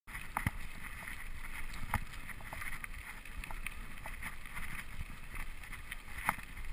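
Mountain bike rolling fast downhill on a gravel trail: a steady rumble of tyres on grit with the bike rattling, sharp knocks at irregular intervals as it hits bumps, and wind on the microphone.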